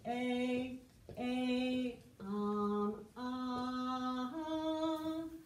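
A woman singing the Latin first-declension noun endings as five held notes, one syllable per note, the pitch changing from note to note.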